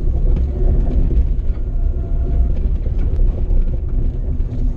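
Car driving along, heard from inside the cabin: a steady low engine and road rumble with tyre hiss.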